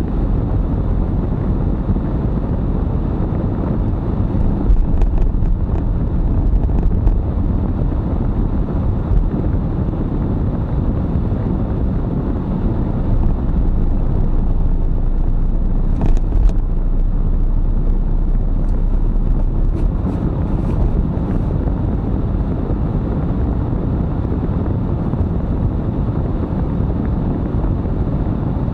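Car cabin noise while driving slowly: a steady low rumble of engine and tyres on the road, with a few light clicks or rattles here and there.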